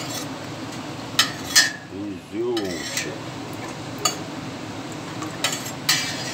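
Kitchen utensils knocking and clinking against dishes and pots, about five sharp clinks with a short wavering scrape partway through, over a steady low hum.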